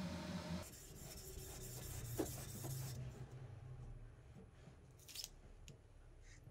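Single-bevel sashimi knife blade stroked by hand on a whetstone, a scratchy rubbing for about two seconds: the last finishing strokes of hand sharpening. A steady hum stops under a second in, and a few light clicks come near the end as the knife is lifted off the stone.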